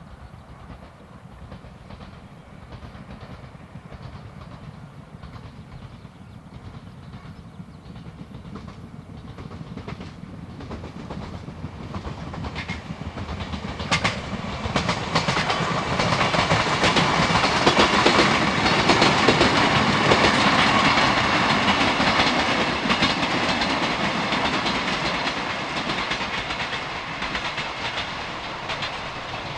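Yoro Railway electric train running past, its wheels clacking over the rail joints. It grows louder through the first half, is loudest a little past the middle, then slowly fades.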